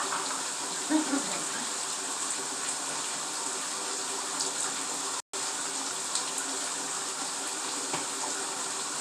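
Bathtub tap running steadily, water pouring into a filling tub.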